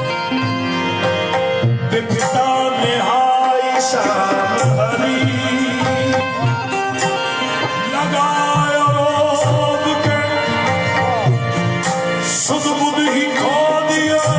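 Qawwali: a male voice singing melodic, ornamented lines over harmonium, with tabla keeping a steady rhythm.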